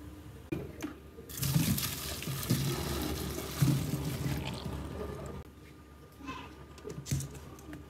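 Blanched silkworms and their blanching water poured from a pot into a stainless-steel colander in a metal sink: water splashing and draining for about four seconds, starting about a second in. A few light knocks come before and after the pour.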